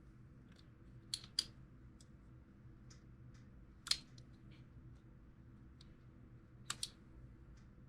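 Sharp clicks and taps from the parts of a field-stripped Glock 19 Gen 6 pistol being handled during cleaning. There is a pair about a second in, a single louder click near four seconds, and another quick pair near the end, with fainter ticks between.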